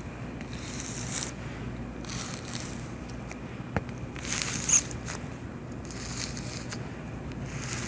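Cockroaches scratching and rustling close up, in short scratchy bursts over a steady low hum; the loudest burst comes a little past halfway.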